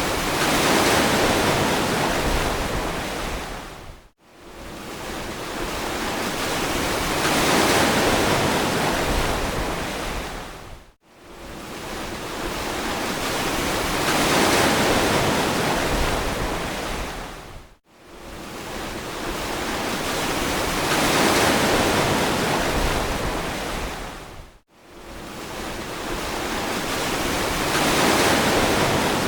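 Ocean surf: waves swell and wash in, then fade, one about every seven seconds. Each wave is cut off by a brief, sudden drop to near silence.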